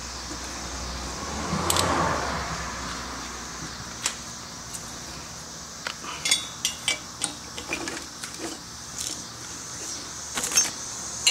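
Metal tools and bolts being handled during exhaust work, in scattered light clinks and rattles that come thickest from about six seconds on. A brief swell of noise about two seconds in is the loudest moment.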